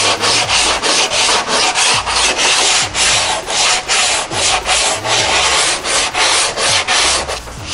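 Coarse 80-grit sandpaper on a hand sanding block rasping over hardened body filler on a composite racing shell's hull, in quick, even back-and-forth strokes: the filler is being shaped and faired to the hull's contour.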